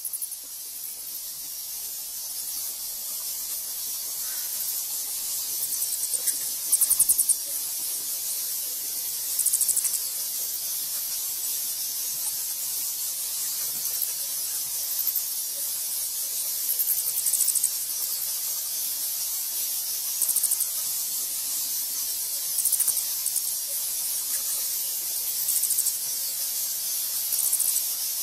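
A swarm of bats in flight: a steady high-pitched hiss, with short bursts of rapid clicking chatter every few seconds, the loudest about seven seconds in.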